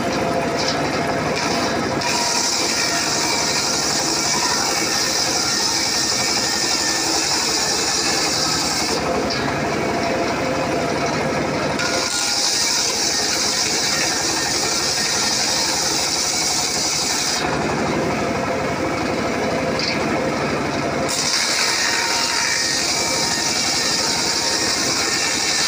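Homemade table circular saw running steadily while ripping acacia wood into boards. A high hissing cut sound comes and goes, dropping away twice for a few seconds between passes while the blade keeps spinning.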